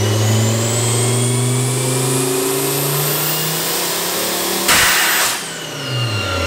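Turbocharged VW 07K 2.5-litre five-cylinder under full load on a dyno at 18 psi of boost, its revs and the Garrett turbo's whistle rising steadily. About four and a half seconds in, a loud hiss lasting about half a second as the boost coupler on the compressor outlet blows off, and the revs then fall away.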